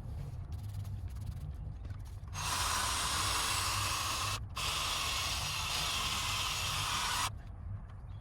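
A spray hiss starts about two seconds in and runs for about five seconds, with a brief break partway through, then cuts off sharply. A low steady rumble continues underneath.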